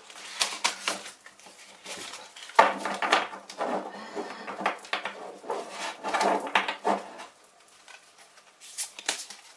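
A deck of large oracle cards being shuffled by hand: quick papery flicks and taps, thickest from about two and a half to seven seconds in, then sparser.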